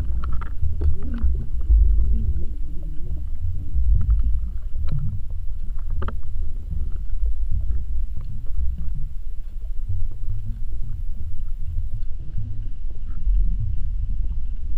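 Underwater rumble picked up by a submerged camera: a steady deep rumble of moving water, with a few scattered faint clicks.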